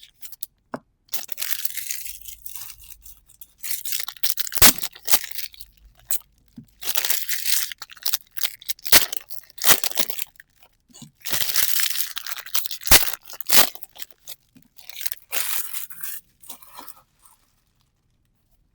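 A trading-card booster pack wrapper being torn open and crinkled by hand, in repeated bursts of crackling with sharp clicks and snaps between them.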